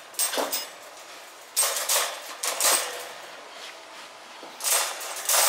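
Black wire panels of a folding metal dog crate clinking and rattling against each other as they are handled, in several short bouts of clatter.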